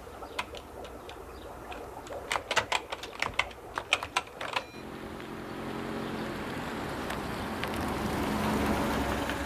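A run of irregular sharp clicks for the first half. Then a car engine comes in, running steadily and growing louder toward the end.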